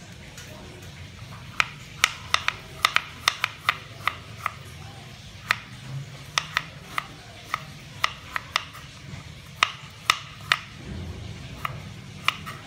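Kitchen knife slicing fresh ginger on a plastic cutting board: a run of sharp, irregular taps as the blade meets the board, coming fastest a couple of seconds in.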